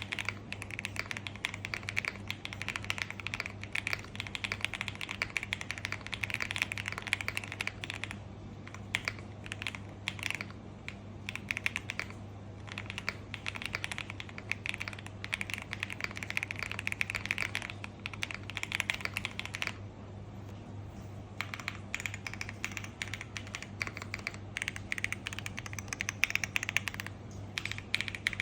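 Typing on a Lucky65 v1 mechanical keyboard with Akko Cream Yellow linear switches, an FR4 plate and PBT double-shot keycaps: fast, continuous keystrokes. The typing breaks off briefly about 8, 20 and 27 seconds in, over a low steady hum.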